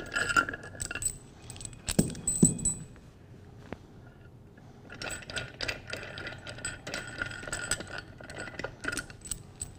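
Metal cover nuts being spun off the studs of a Cla-Val Hytrol main valve's cover by hand, with light metallic rattling and clinking. Two louder metallic knocks come about two seconds in.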